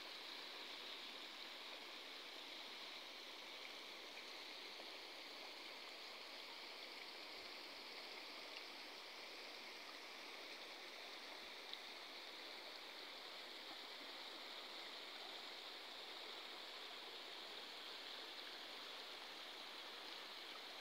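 Faint, steady rush of running water, with one small click a little past the middle.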